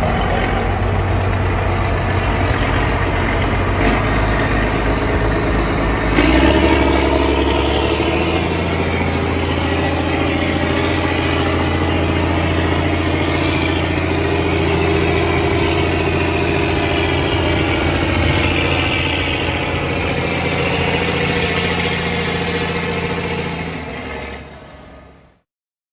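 Tractor engine running steadily as the loaded model tractor pulls through sand; about six seconds in its note changes and grows louder, and it fades out near the end.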